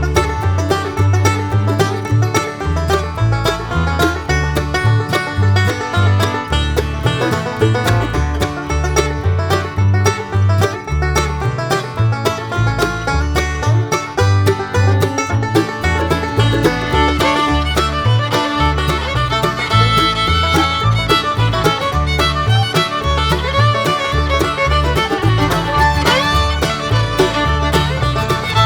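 Upbeat bluegrass-style background music with banjo, fiddle and a steady walking bass.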